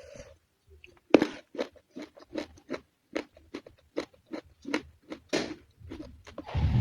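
Close-up chewing of crunchy raw vegetables (lalapan), a run of sharp crunches about three a second. Near the end a loud rumbling noise swells in, like a passing vehicle.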